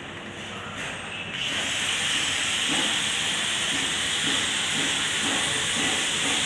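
A steady, loud hiss starts abruptly about a second and a half in and holds.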